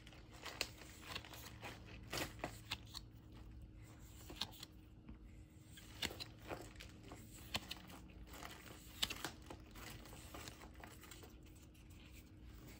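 Plastic crinkling and crackling in scattered short bursts, with a few sharper clicks.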